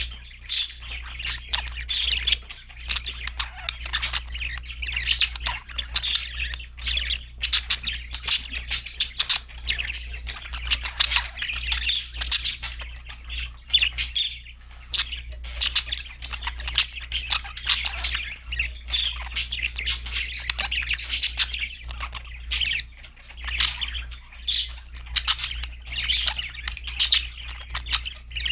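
Budgerigars chirping, warbling and squawking in a dense, unbroken chatter, over a steady low hum.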